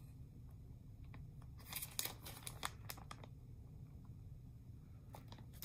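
Faint crinkling of a clear plastic bag of soft plastic craw baits being handled and turned over in the hand, in a few short rustles about two seconds in and again near the end.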